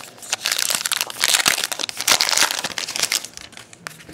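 A Topps Gypsy Queen baseball card pack's crimped wrapper being torn open and crinkled by hand. It makes a dense crackling rustle that is loudest in the middle and fades near the end.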